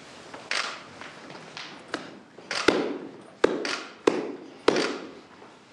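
A series of about ten short, sharp clicks. The four loudest come evenly, about two-thirds of a second apart, in the second half.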